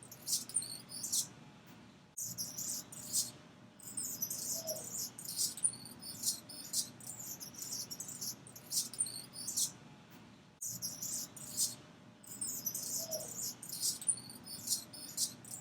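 Anna's hummingbird chirping: rapid, high-pitched, scratchy chirps and buzzy notes in quick clusters with brief pauses between them.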